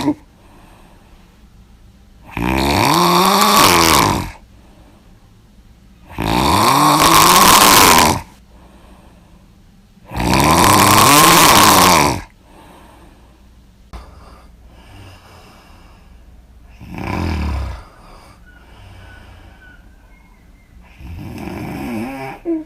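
A person snoring loudly with the mouth open: five snores about four seconds apart, each with a pitch that rises and then falls. The first three are loud and about two seconds long; the last two are shorter and softer.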